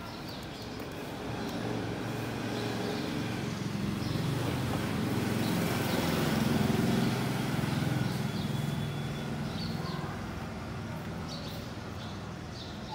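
A motor vehicle passing on a road, its engine growing louder, peaking midway and fading away over about nine seconds. Faint bird chirps are heard over it.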